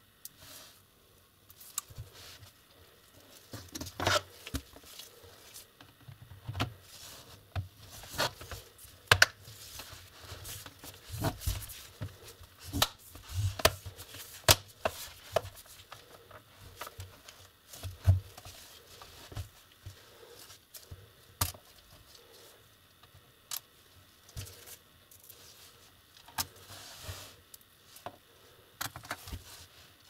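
Plastic snap clips of an Acer Aspire notebook's case clicking into place as its edges are pressed shut, a run of irregular sharp clicks and small handling knocks.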